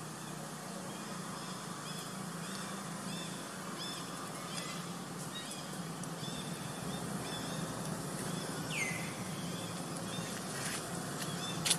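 Outdoor forest ambience with a bird calling over and over, short chirps about twice a second, over a steady low hum. A single falling whistle about nine seconds in, and a sharp click near the end.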